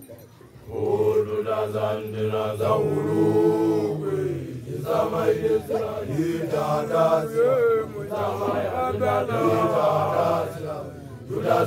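Male voices chanting in long, held phrases that glide in pitch, starting about a second in.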